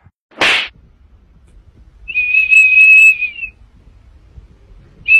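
Small plastic whistle held in a golden retriever's mouth, sounding one long shrill steady note for about a second and a half, starting about two seconds in and dipping slightly in pitch as it ends. It sounds again right at the end. A brief rushing noise comes about half a second in.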